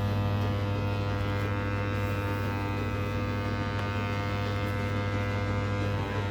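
Washing machine motor running with a steady, even hum.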